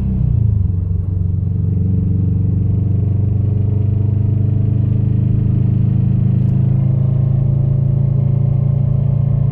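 2015 Subaru WRX STI's turbocharged flat-four engine, with a catless downpipe and aftermarket exhaust, coming down from a rev in the first second and then idling steadily. The car has developed a strange rattling noise since an oil change.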